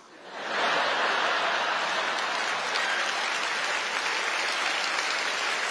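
Large audience laughing and applauding. The sound swells up within the first half second and then holds steady.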